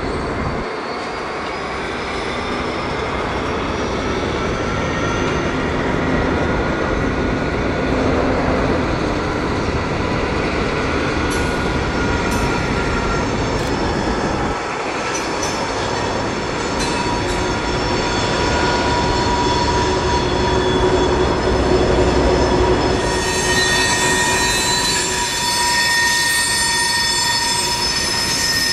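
British Rail Class 03 diesel shunter D2112 hauling a train of empty wagons, with its Gardner diesel engine and steady rolling noise. Several high squealing tones come from the wheels throughout and grow stronger in the last few seconds.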